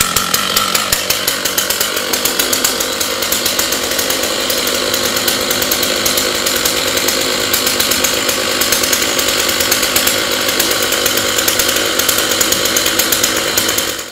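Chainsaw running steadily as it cuts into wood for carving, then cutting off abruptly at the end.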